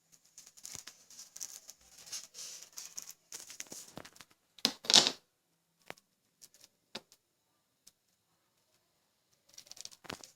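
Rustling and scraping of hands handling the wires of a Cat 5e cable, with a louder rustle about five seconds in and a few sharp clicks after it.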